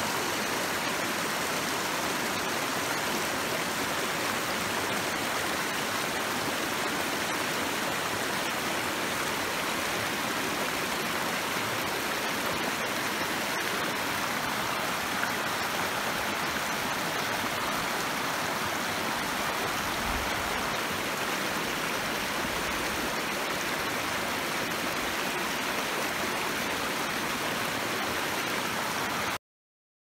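Muddy floodwater rushing over rocks and gravel in a shallow riverbed: the Gamka River, normally dry, running after rain. It makes a steady, even rush of water that cuts off suddenly near the end.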